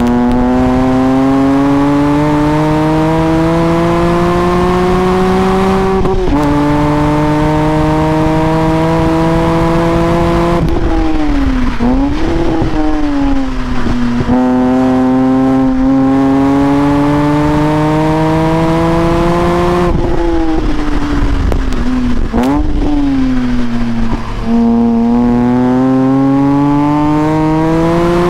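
BMW M Coupe's straight-six engine pulling hard, heard from inside the cabin. The revs climb in long pulls through the gears, with an upshift about six seconds in. Twice the revs fall away under braking, with quick throttle blips on the downshifts, before climbing again.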